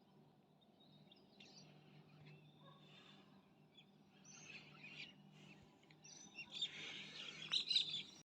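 Faint outdoor birdsong: scattered short chirps and calls that grow busier and louder near the end, over a faint steady low hum.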